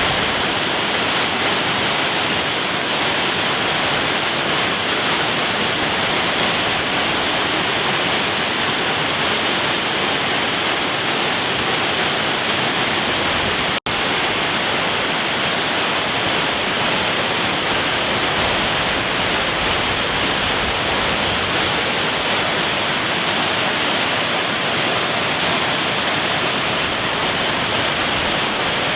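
Waterfall rushing: a steady, even hiss of falling water that cuts out for an instant about halfway through.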